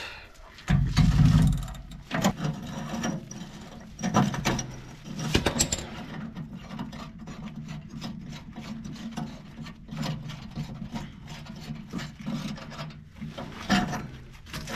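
Hand ratchet clicking in quick runs as a 13 mm socket works a rusted exhaust bolt, with rubbing and knocking of gloved hands against the metal and a loud low rub about a second in. A steady low hum runs underneath.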